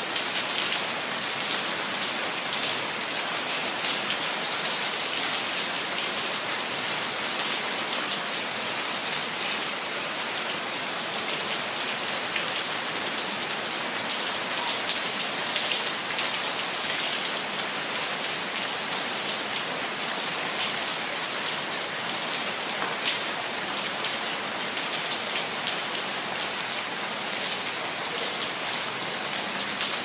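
Steady rain falling, dense with many small drop impacts on a wet hard surface, even and unbroken throughout.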